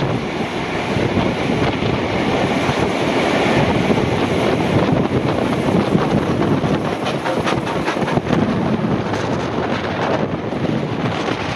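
Wind buffeting a microphone held out of a moving train's window, over the steady rumble and clatter of two trains running side by side. The R class steam locomotive and carriages of the parallel train pass close alongside, with a run of light clicks in the middle.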